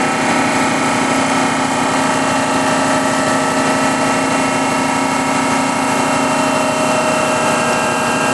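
GEM glass shape edger running: its motor turns the polishing wheel at low speed against the edge of a glass circle under a water feed, with a steady hum and grinding noise.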